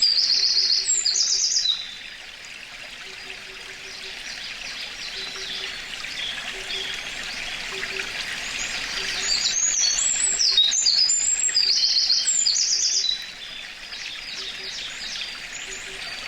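Eurasian wren singing its long, rapid, high-pitched trilling song. One song ends about two seconds in and another runs from about nine to thirteen seconds. Running water hisses steadily behind it.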